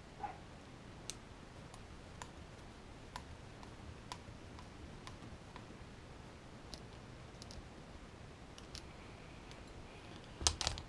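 Faint, scattered clicks of needle-nose pliers and small plastic and metal parts of an RC crawler transmission being handled while a grub screw is fitted, with a louder quick clatter of clicks near the end.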